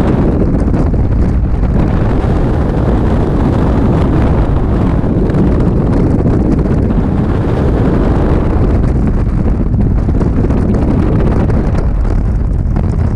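Loud, steady rush of freefall wind buffeting the microphone during a skydive.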